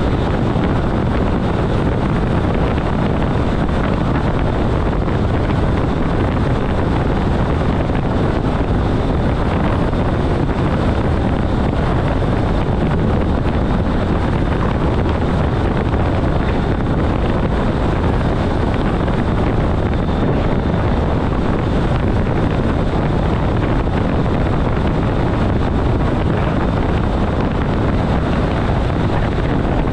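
ÖBB class 4024 Talent electric multiple unit running at about 140 km/h: a steady noise of wheels on the rails and air rushing past, with no change in pace.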